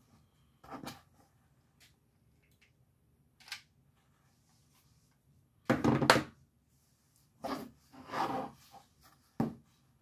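Short rustling and knocking handling sounds as craft materials are moved about on a work surface, about six brief bursts with the loudest about six seconds in.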